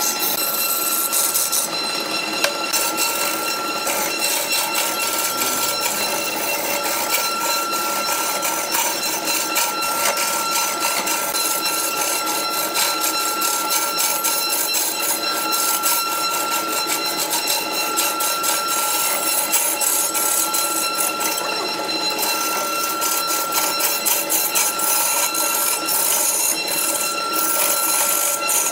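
Large wood lathe spinning a big log, with a steady high whine, while a hand-held turning tool scrapes and cuts the spinning wood in a rapid, continuous clatter.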